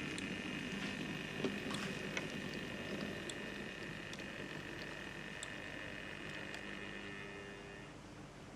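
Small electric motor of a model locomotive running with a steady high whine and scattered light clicks, the whine stopping near the end.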